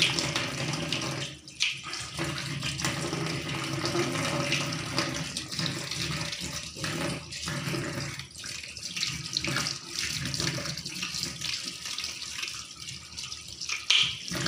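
Water running from a kitchen tap into a stainless-steel sink as a catfish is rinsed and handled under the stream. The flow is steady, broken by frequent short splashes and clicks.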